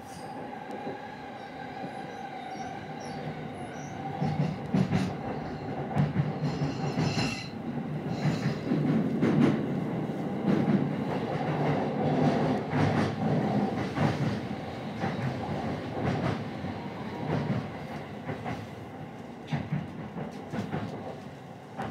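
Electric commuter train heard from inside the passenger car as it runs into a station: a steady rolling rumble with a high whine over the first few seconds. After that the rumble grows louder, with many irregular clacks of the wheels over rail joints and points.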